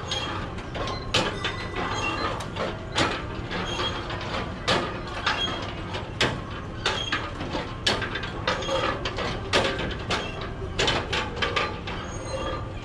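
Irregular metallic clicking and clanking from the mechanism of a hand-powered spinning kiddie ride.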